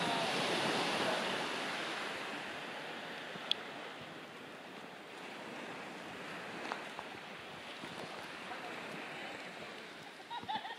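Surf washing onto a sandy beach: a steady rushing noise that swells near the start and slowly eases, with a sharp click about three and a half seconds in.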